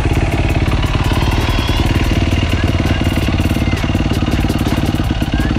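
Yamaha YZ450F's single-cylinder four-stroke engine idling steadily, run after a fresh oil change to circulate the new oil before the level is checked on the dipstick.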